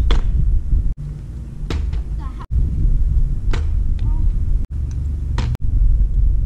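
A kick scooter clacking sharply on the asphalt as a rider lands tricks: four hard knocks about two seconds apart, over a steady low rumble.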